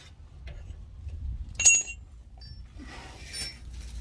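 A sharp metallic clink with a short ring about one and a half seconds in, as the steel exhaust hanger is forced onto the muffler bracket, followed near the end by softer metal scraping.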